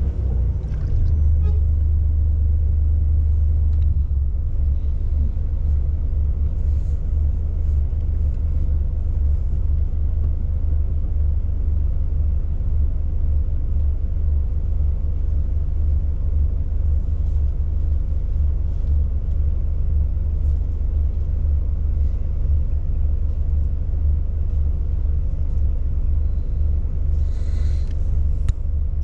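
Coach's diesel engine running with a steady low rumble, heard from inside the passenger cabin while the coach creeps slowly through the yard. A short hiss comes near the end.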